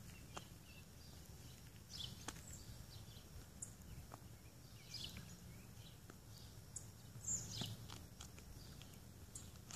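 Quiet outdoor ambience: a steady low background with a few faint, short bird chirps scattered through it.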